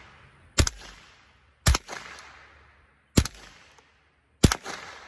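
Savage 64 F semi-automatic .22 LR rifle firing four single shots, about a second to a second and a half apart, each followed by a short fading echo.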